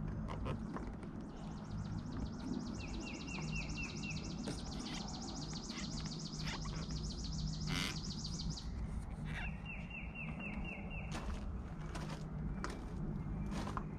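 Songbirds singing: a fast, high trill lasting several seconds in the middle and two short runs of repeated lower chirps, over a steady low hum. Occasional sharp clicks come from the clear plastic windscreen being handled against its mounts.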